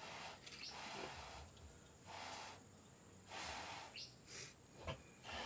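Faint puffs of breath, about four of them a second or two apart: mouth-to-snout rescue breaths blown into a newborn piglet that is not breathing.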